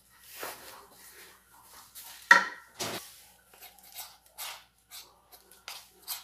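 Wooden spoon stirring a thickening flour dough in an aluminium bowl: repeated scraping strokes against the metal, with two louder knocks a little over two seconds in, then quicker, lighter strokes.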